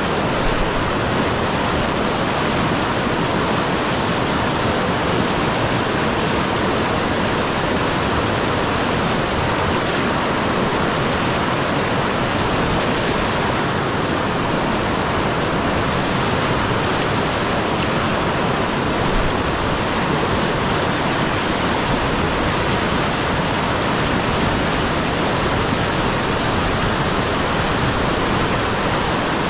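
River rapids rushing over rocks: a loud, steady wash of white water.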